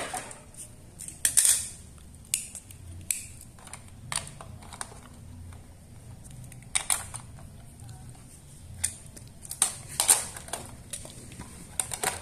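Hard plastic Playmobil toy parts clicking and knocking together as figures are set into a toy police truck and its roof is fitted on. The clicks come at irregular intervals, with a few louder ones.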